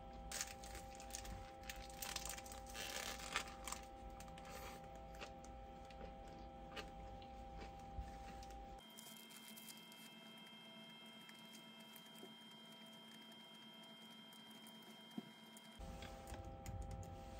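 Faint indoor room tone: a steady electrical-sounding hum with scattered light clicks and rustles. About nine seconds in the background changes abruptly to a thinner hum with a high steady tone, and it switches back near the end.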